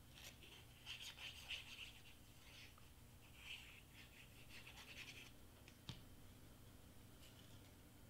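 Faint scratching and rustling of cardstock pieces being handled and pressed into place, in two short spells, with one sharp click about six seconds in.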